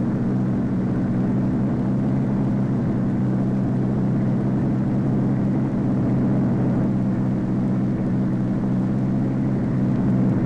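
Steady aircraft engine drone, unchanging in pitch and level throughout.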